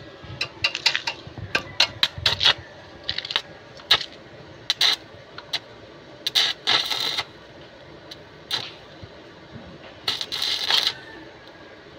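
Stick (arc) welding: a run of sharp crackles and clicks as the electrode strikes the arc, then short bursts of crackling, hissing arc as tack welds are laid, one about halfway through and one near the end.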